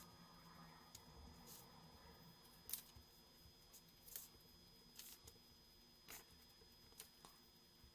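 Faint, scattered short scratches and taps of a felt-tip marker writing labels on paper, with the paper sheets being shifted, over near silence.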